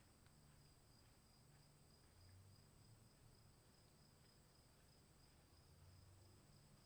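Very faint, steady high-pitched trilling of crickets over a low, soft rumble, close to near silence.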